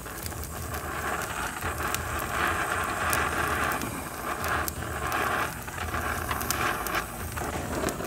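Oxy-fuel brazing torch flame hissing against a copper tube joint on an HVAC coil while a leak is sealed, swelling and easing as the torch works the joint. The flame goes out near the end.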